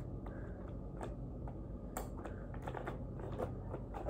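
Scattered light clicks and taps of hands handling a toy's packaging, about a dozen irregular ticks over a low steady hum.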